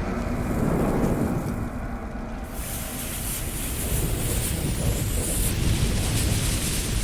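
Intro sound effects: a low, thunder-like rumble, with a hiss filling in the highs from about two and a half seconds in.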